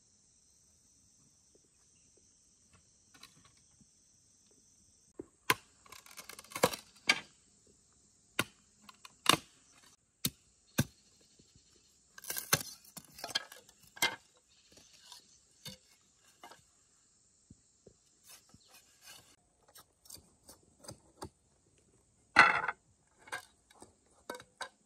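Scattered sharp clicks and knocks of hard objects being handled, with a louder knock near the end. Insects trill steadily for the first few seconds.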